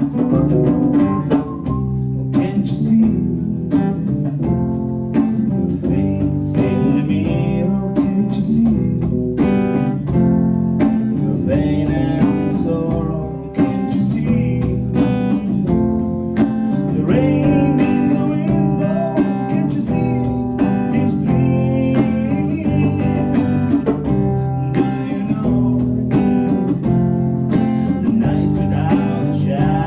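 Live band music: a guitar played with drums keeping a steady beat, in a blues-country style.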